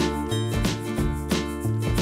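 Background music with a steady beat, its notes changing about three times a second.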